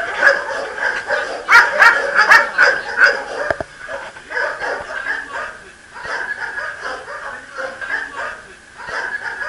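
Several shelter dogs barking in a kennel run, loudest in a quick series of barks between about one and a half and two and a half seconds in, quieter afterwards.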